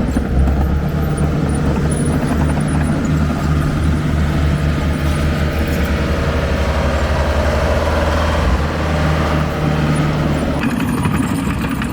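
Diesel engine of a heavy earthmoving machine running steadily under work.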